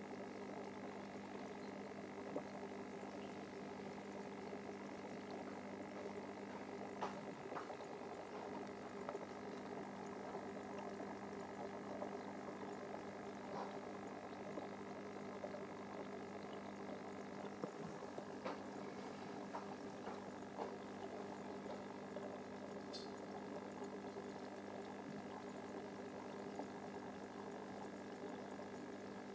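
Aquarium filter equipment running: a faint steady hum with bubbling, crackling water and a few small clicks.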